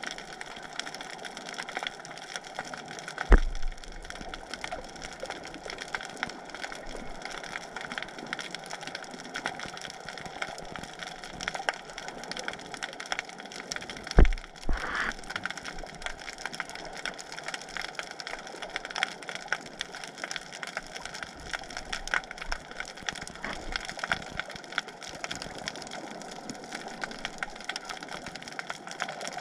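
Underwater sound picked up through a waterproof camera housing: a steady crackle of many small clicks, with two dull knocks, one about three seconds in and one about halfway through.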